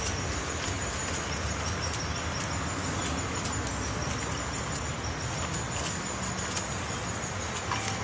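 Pileated woodpecker chiselling into a rotted tree trunk: irregular light knocks and chips of wood as it digs out a cavity, over a steady low rumble and a faint steady high insect hum.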